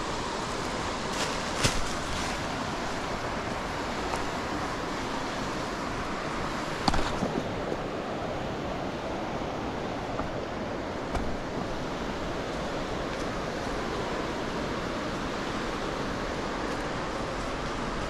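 Steady rushing water of a waterfall: an even, unbroken hiss, with a few brief clicks, the sharpest about seven seconds in.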